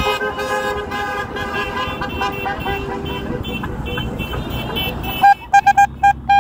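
Horns of passing vehicles honking, several at different pitches overlapping, over traffic noise. About five seconds in, one near horn gives a quick string of short loud honks and then starts a long blast.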